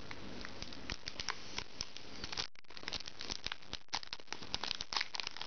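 Foil wrapper of a Pokémon trading card booster pack crinkling and crackling as it is handled and opened, a dense run of small irregular crackles.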